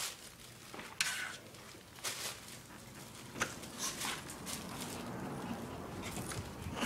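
A shih tzu scrabbling and scuffling at a door: a string of short scrapes and scuffs, a few seconds apart.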